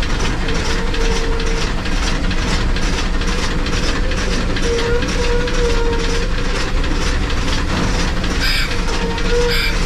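Shay geared steam locomotive running, heard from inside its cab: a steady, rapid clatter of the running gear and wheels on the rails. A wavering squeal from the wheels comes and goes several times.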